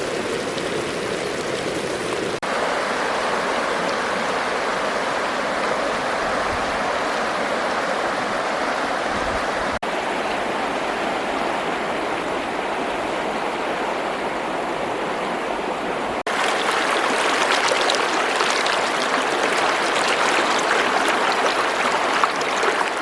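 Running water, a steady rushing noise with abrupt changes between edited shots.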